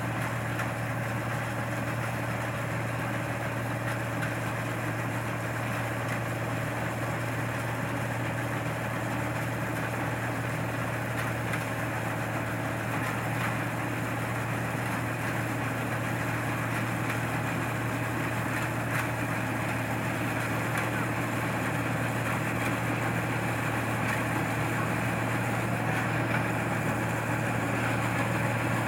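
Combine harvester engine running steadily with a constant low drone.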